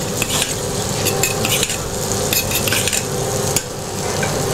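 Scallops frying in foaming butter in a stainless steel pan, sizzling steadily. A metal spoon scoops and bastes them, clinking and scraping against the pan every second or so.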